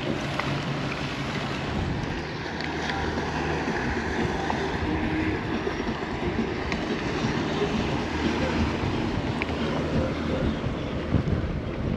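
Wind buffeting the microphone and choppy water lapping against a fishing kayak's hull, with a faint steady low hum underneath and a few small clicks of handled fishing tackle.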